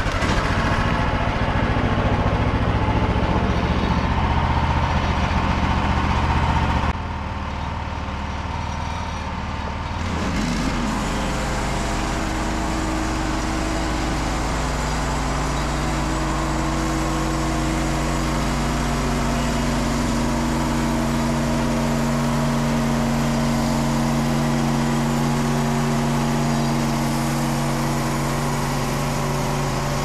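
Petrol engine of a Frontier OS27 bandsaw mill running loudly. About seven seconds in it drops suddenly to a quieter, lower running and then settles into a steady note. The owner puts the engine's trouble down to the spark plug.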